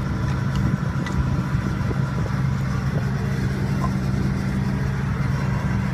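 Heavy logging machine's engine idling steadily with a low, even hum, and a couple of light clinks about a second in.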